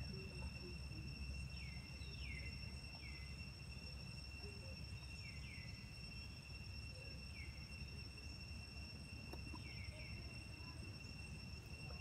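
Insects droning steadily on one high tone, with short downward-sliding chirps every second or two over a low rumble.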